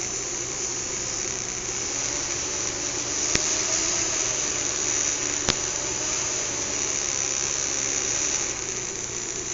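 Small fischertechnik electric motors spinning the monorail carriage's propellers in reverse, a steady whirring with a high whine and two sharp clicks, about three and a half and five and a half seconds in. The carriage is not driving properly in this direction.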